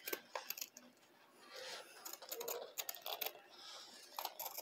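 Scissors cutting through thick nonwoven fabric, a run of quiet, crisp snips.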